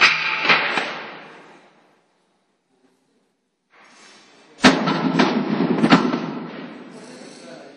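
Factory workshop noise of metal being struck: sharp clanks and bangs over a clattering background, which dies away and stops for a couple of seconds. A loud bang comes about four and a half seconds in, then a few more clanks that fade out.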